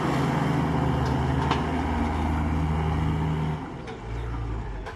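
Mahindra XP 475 tractor's diesel engine running under load as it pulls a loaded trolley free of a muddy rut. About three and a half seconds in, the engine note drops and shifts lower, then steadies.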